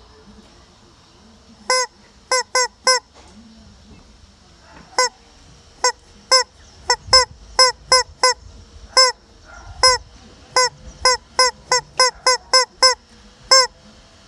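Hen calling loudly with short, sharp squawks over and over: about two dozen clipped calls in quick, irregular runs, each with a clear pitch that bends slightly at its end.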